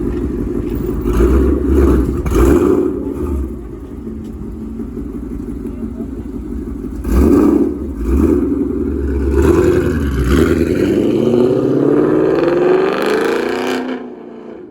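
Loud V8 car exhaust revving in several surges, then pulling away with a rising pitch that drops off near the end.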